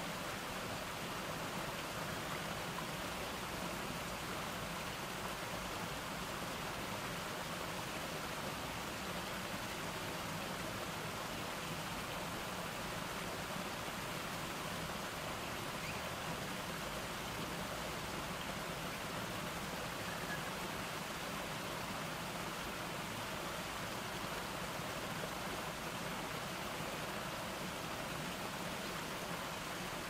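Small garden cascade: water tumbling over a series of low rock ledges into a pool, making a steady, even splashing rush.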